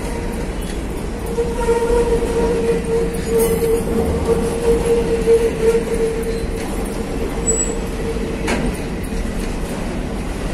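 Empty freight train of covered hopper cars rolling past close by: a steady rumble of wheels on rail with scattered clicks. A steady high-pitched wheel squeal starts about a second and a half in and stops about eight and a half seconds in.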